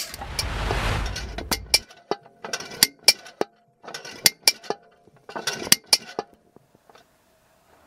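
Hard plastic clicks and clatter from the body of a Toshiba VC-8300 canister vacuum cleaner being handled and opened, its motor off. A short low rumbling rush comes first, then three quick runs of sharp clicks and knocks.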